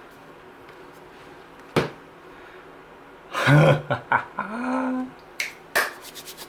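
Sharp clicks and knocks from handling a folding 3D-printed plastic work pad: one click about two seconds in, and near the end two clicks followed by a quick run of small rattling clicks. In the middle there is a louder pitched sound lasting under two seconds.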